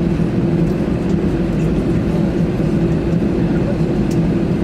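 Steady engine hum and rumble of an Airbus A321 heard inside its passenger cabin, even in level throughout.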